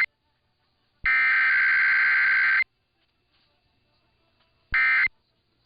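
Emergency Alert System SAME digital header bursts, a harsh two-tone warble. One burst cuts off at the start and another runs for about a second and a half; after a pause, a short burst near the end begins the end-of-message code of a Required Weekly Test, sent with no attention tone or voice message.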